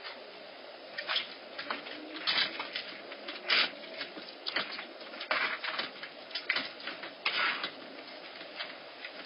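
Bobcat kittens play-fighting on a wooden deck: a run of short, noisy scuffles and hisses, the loudest about three and a half and seven seconds in. Heard through a security camera's microphone.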